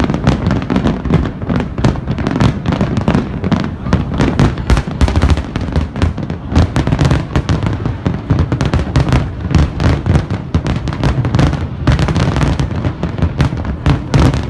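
A large fireworks display: a dense, unbroken barrage of shell bursts, several bangs a second over deep booms.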